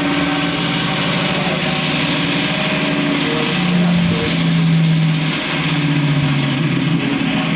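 Cotton candy machine running: its motor spins the heated head with a steady mechanical hum, the hum's pitch stepping down a little about three and a half seconds in.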